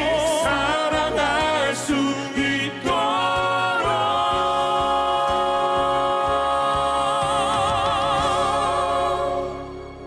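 Male vocal quartet singing the last line of a ballad in close harmony over backing music. About three seconds in, the voices settle on a long held final chord with vibrato, which fades away near the end.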